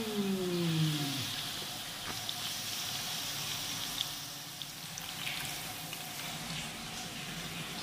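Veal tocino strips sizzling in oil in a nonstick frying pan: a steady hiss with faint crackles and a few light clicks. A short vocal sound falling in pitch in the first second.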